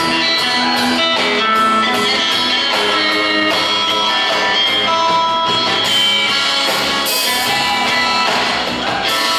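Live rock trio playing an instrumental passage: electric guitar over upright bass and drums, at a steady level.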